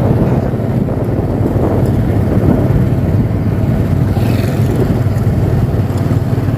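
Motor vehicle running on the road while riding, a steady low rumble of engine and road noise.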